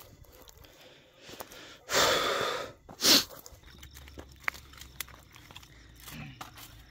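Footsteps and small crackles of twigs and dry ground as someone climbs a forest slope, with two loud breathy huffs close to the microphone about two and three seconds in, the first longer and the second sharper.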